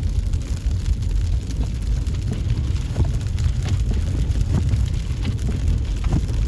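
Car driving on snowy streets, heard inside the cabin: a steady low road-and-engine rumble with scattered light ticks.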